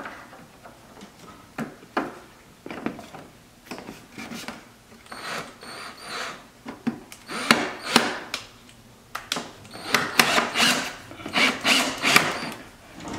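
Plastic wheel air dam panel scraping and rubbing against a car's underbody as it is pushed into place, with scattered knocks. The scraping gets louder and more frequent about halfway through.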